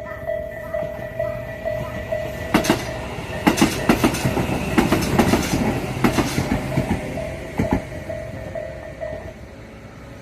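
Electronic level-crossing bell of the Isesaki type dinging in a steady repeating rhythm as a Tobu Isesaki Line train passes. From about two and a half seconds in, the wheels clack loudly over the rail joints for several seconds. The bell falls silent near the end.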